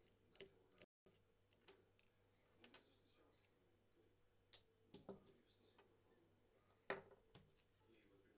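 Near silence broken by a handful of faint, scattered clicks and taps, like small tools or parts being handled at a workbench; the loudest comes about seven seconds in.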